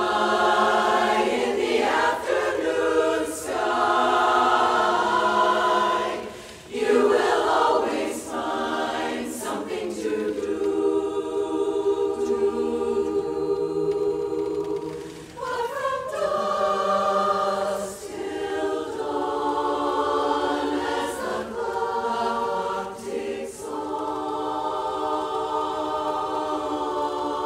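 Women's chorus singing unaccompanied in close harmony, sustained chords moving from phrase to phrase with brief breaks for breath between them.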